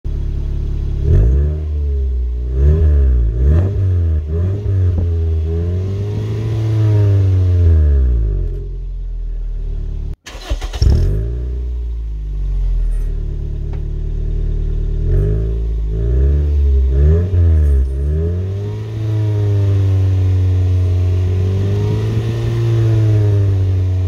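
Car exhaust at the tailpipe as the engine is revved again and again, the pitch rising and falling with each blip. First the stock muffler alone; after a brief cut about ten seconds in, the same revving continues with a clip-in turbo whistle fitted inside the tailpipe.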